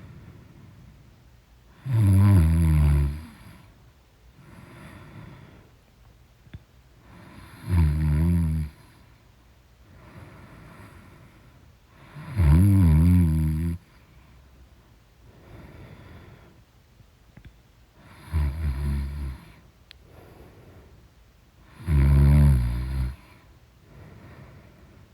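A woman snoring loudly in her sleep: five long, rattling snores come about every five seconds, with quieter breathing between them.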